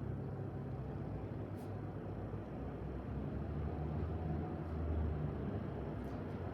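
Road traffic from the street, a steady low rumble that swells as a vehicle passes about halfway through, with a couple of faint high ticks.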